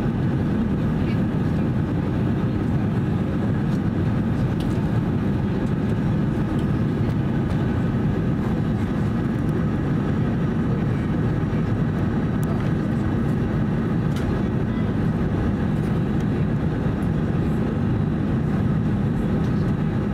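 Steady low rumble of engine and airflow noise in the passenger cabin of an Airbus A320-214 airliner, with faint scattered ticks.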